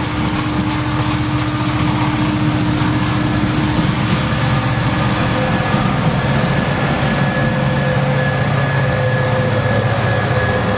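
CSX diesel-electric freight locomotives passing close at speed: the engines running as a steady, loud drone over the rumble of steel wheels on the rails, with the engine tones changing as one unit gives way to the next.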